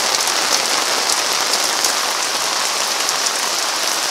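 Heavy rain pouring onto the loch and onto the sailing yacht's deck and canvas: a steady, dense hiss with the fine ticks of close drops.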